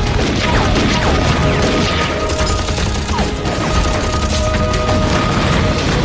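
Dense battle sound effects: rapid gunfire with crashes and explosions, under dramatic background music with a few held notes.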